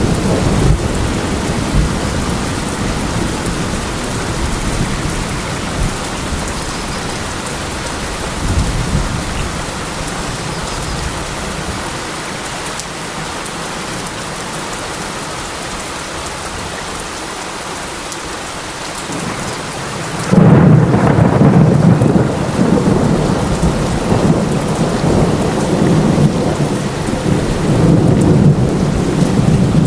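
Steady heavy rain with thunder: a low rumble dies away early on, then a loud roll of thunder breaks in about two-thirds of the way through and keeps rumbling under the rain.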